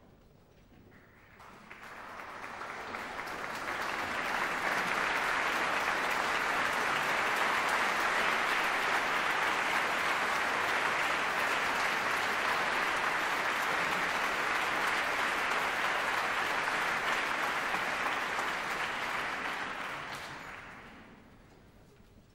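Concert audience applauding in a large stone church, welcoming the soloists and conductor as they come on. The clapping swells up over the first few seconds, holds steady, then dies away near the end.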